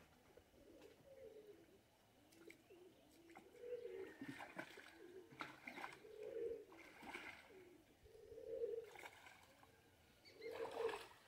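Water sloshing and splashing with each step of a person wading through a shallow pond. The splashes begin about four seconds in and come several times, the loudest near the end. A dove coos repeatedly underneath.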